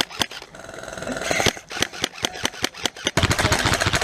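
Airsoft guns firing: scattered sharp single shots, then a dense rapid string of shots from about three seconds in.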